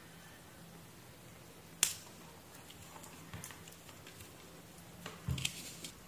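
Faint handling noises from hands working wire leads and sleeving, with one sharp click about two seconds in and a short cluster of clicks and taps near the end.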